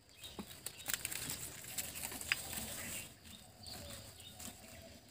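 Faint rustling and light crackling of a bundle of burning dry sticks being pushed into the mouth of a clay stove to light it, with one sharp click a little past two seconds in.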